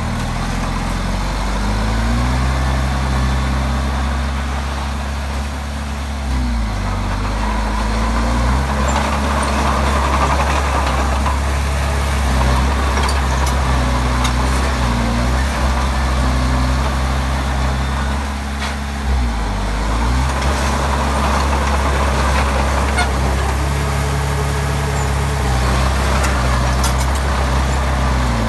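Diesel engine of a Komatsu D20P bulldozer running under working load, its pitch dropping and climbing back twice, about six and nineteen seconds in. A rushing noise swells and fades twice between those changes.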